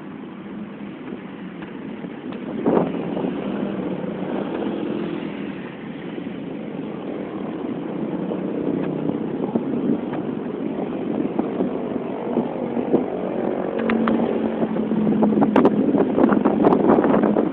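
Vehicle engine and road noise from inside a moving vehicle, steady and slowly growing louder, with short crackles near the end.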